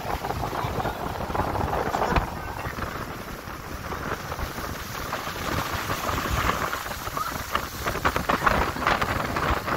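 Wind buffeting the microphone and water rushing and splashing past a moving motorboat. The splashing and gusts are loudest near the end.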